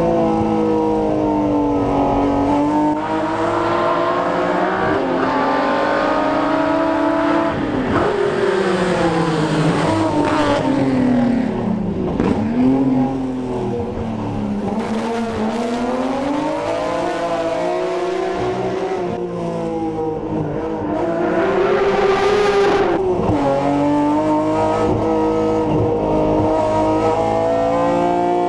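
BMW M3 race car's engine, heard from the cockpit, revving hard up through the gears, its pitch climbing under acceleration and falling sharply at each shift or lift-off. A short rushing hiss rides over the engine about three-quarters of the way through.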